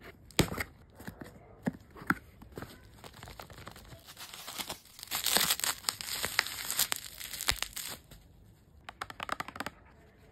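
Scissors cutting through plastic bubble wrap, which crinkles and tears, with scattered snips and rustles at first and a dense stretch of crinkling from about five to eight seconds in. A short run of light clicks follows near the end.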